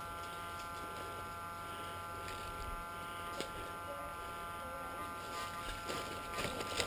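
A steady, faint electrical buzz made of several held tones, with a few sharp clicks near the end.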